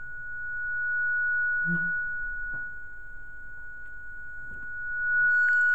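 Acoustic feedback between a vocal microphone and the PA speakers: one steady whistling tone, held at the same pitch, swelling louder about a second in and again near the end. It rings because the mid-range EQ is boosted at the feedback frequency.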